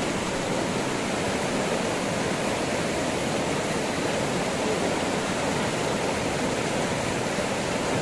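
River water rushing steadily, a constant even roar of fast-flowing water.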